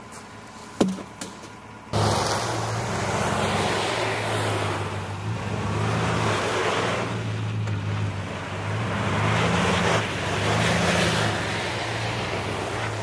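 A few sharp knocks in the first two seconds, the loudest about a second in. Then a Chevrolet Silverado pickup's engine starts up loud and runs on as the truck is driven, its note rising and falling.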